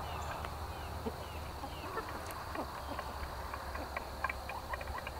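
A flock of hens feeding in dry grass: soft short calls, and many small ticks of pecking and scratching that grow more frequent from about halfway, over a low steady rumble.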